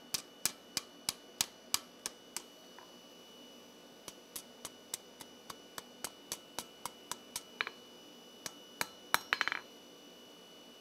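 Three-pound hammer striking a hot steel bar on the anvil's edge, rolling the bar's end into a tight scroll. The blows come about three a second in two runs with a short pause between them, then end in a quick flurry of small taps.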